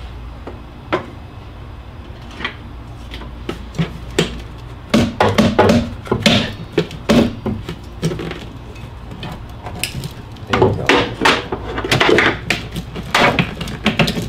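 A socket wrench clicking and metal knocking as the windshield wiper arm nuts are worked loose: a few single clicks at first, then two bursts of rapid clicking and knocking, about five seconds in and again about ten seconds in.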